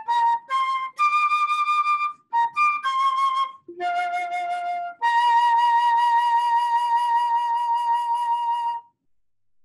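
Solo melody instrument playing the last phrase of an Easter hymn tune, one note at a time, ending on a long held note with vibrato that stops about nine seconds in.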